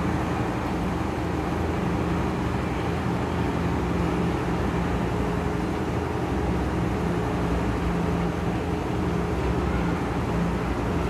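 Steady background hum and rushing noise with a low drone, unchanging throughout.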